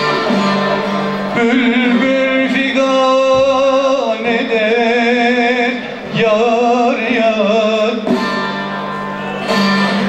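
A man singing in Turkish folk style to his own bağlama (long-necked saz). The voice comes in about a second and a half in with long, wavering held notes, and the plucked saz carries on alone near the end.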